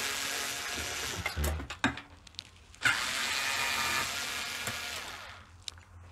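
Small cordless electric screwdriver running to back out Torx screws from a dishwasher's door: the motor whirs for about a second, a few light clicks follow, then it runs again for about two and a half seconds and winds down.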